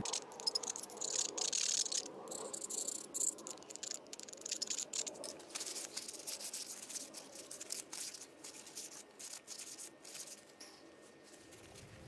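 A screwdriver scraping and a paper towel rubbing inside a small metal carburetor fuel bowl, a run of irregular scratchy clicks and rasps that thins out toward the end, as rust and gunk are cleaned out of the bowl.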